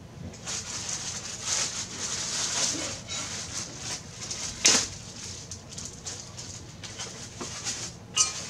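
Plastic packaging bag crinkling and rustling as the tripod's accessory tray is unwrapped, with a sharp snap about halfway through and lighter crackles after.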